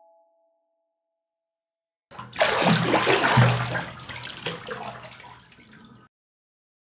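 About two seconds in, bathwater splashes and churns loudly as a person's head goes under, fading over some four seconds and then cutting off abruptly.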